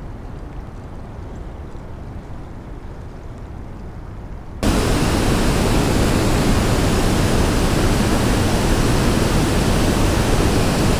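A low, muffled rumble, then about four and a half seconds in a sudden switch to the loud, steady rush of water pouring over a low dam spillway.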